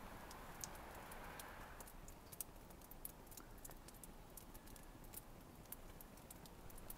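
Faint, irregular dripping of snowmelt, a scatter of small ticks over a soft hiss.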